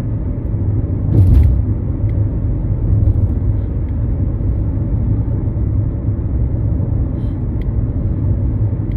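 Steady low rumble of a car being driven, heard from inside the cabin, with one brief, sharp burst of breath about a second in.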